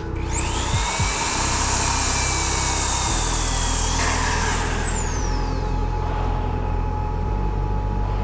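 Electric belt sander starting up with a high whine that rises to speed, running steadily, then switched off about four seconds in and winding down with a falling whine.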